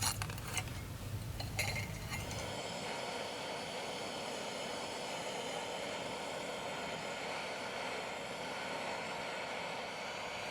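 A few light metallic clinks of small lure parts being handled, then from about two and a half seconds in a steady mechanical whir that holds an even level.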